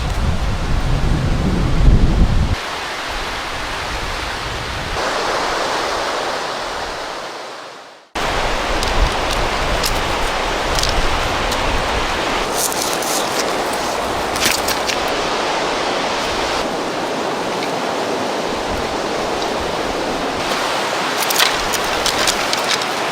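Steady rushing of river water. A low wind rumble on the microphone is heard in the first couple of seconds. The sound fades out about eight seconds in and cuts straight back in, and a few short, sharp crackles sound over the rush later on.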